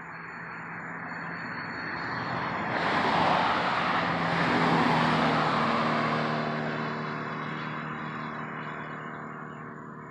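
A car driving past, growing louder to a peak about three to five seconds in, then fading as it drives away.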